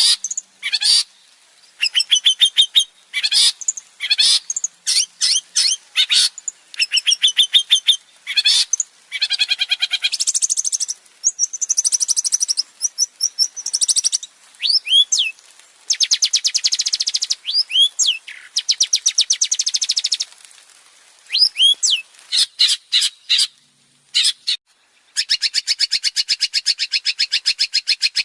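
Male long-tailed shrike (cendet) singing a fast, varied song: runs of rapid chattering notes, quick sweeping whistles, and a long fast rattling trill near the end.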